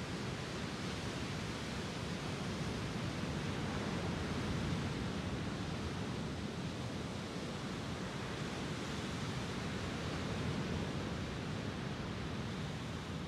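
Small lake waves breaking and washing up onto a sandy beach: a steady surf wash that swells a little about four seconds in and again near ten seconds.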